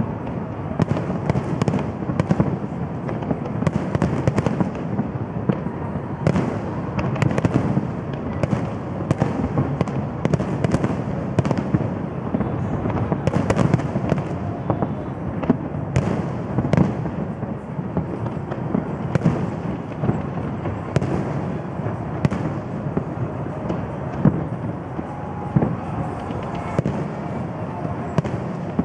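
Fireworks display: aerial shells bursting in quick succession, many sharp bangs over a steady low rumble. The bangs come thick and fast for the first half and thin out somewhat after.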